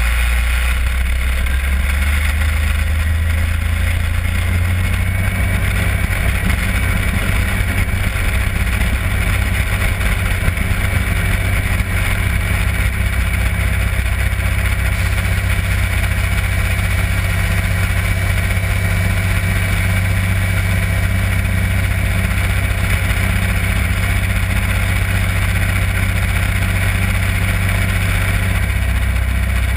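Yak-52's nine-cylinder Vedeneyev M-14P radial engine and propeller at takeoff power, heard inside the closed cockpit during the takeoff roll. The engine note steps up about four seconds in, then holds steady.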